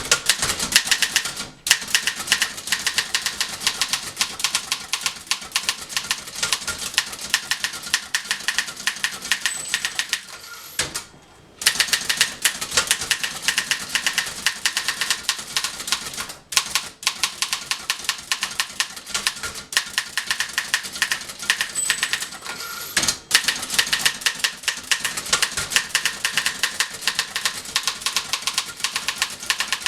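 Typing at speed on a freshly restored 1911 Continental Standard typewriter: a rapid, uneven patter of type-bar strikes against the platen. The typing breaks off briefly a few times, longest about a third of the way in.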